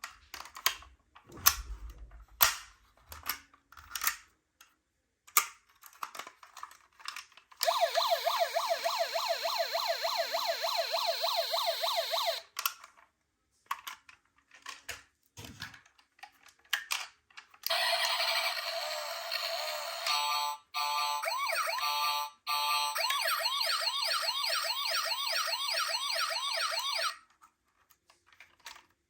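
Toy ambulance's electronic siren sounding in two spells, a fast warbling wail of about four cycles a second that breaks off abruptly at the end of each spell. Before, between and after the spells come short clicks and taps.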